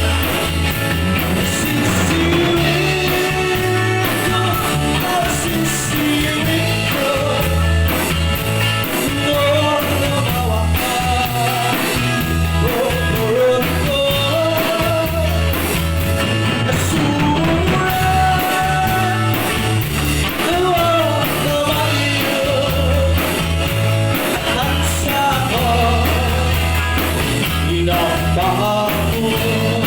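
Rock band playing a song: a lead melody line over bass guitar and a drum kit.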